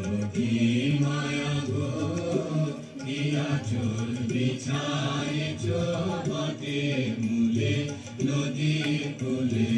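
Slow singing with long held notes that bend in pitch, in a chant-like style.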